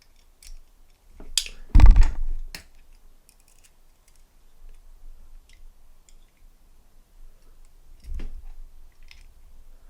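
Small metal clicks and taps from a screwdriver prying and wiggling a part loose on a Zippo butane lighter insert. There is a louder knock with a low thump about two seconds in and a softer thump about eight seconds in.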